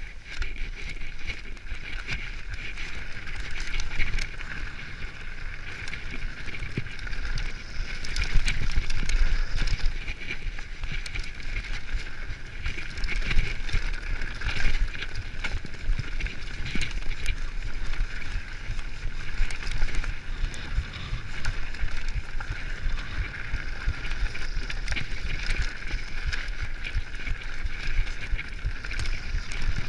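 Mountain bike ridden fast down a rocky dirt trail: tyres rolling and crunching over dirt and stones, with frequent knocks and rattles from the bike as it hits bumps.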